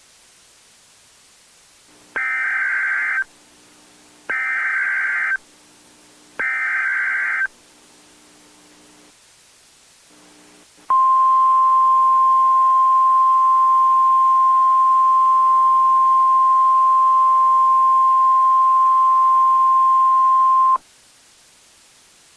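Emergency Alert System SAME header: three short bursts of warbling digital data tones, each about a second long, then, after a short gap, a steady single-pitch weather radio alert tone held for about ten seconds. The sequence signals the start of a new emergency broadcast message.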